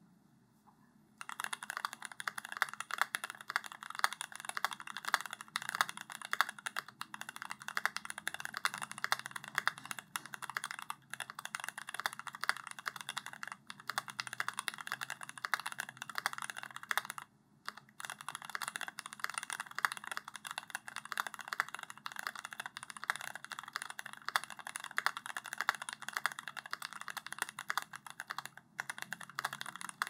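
Continuous fast typing on a Cyberboard R2 mechanical keyboard with lubed JWICK Aloe 67 g tactile switches, an aluminium plate and GMK Laser ABS keycaps: a dense stream of key clacks. It starts about a second in and stops briefly just past halfway.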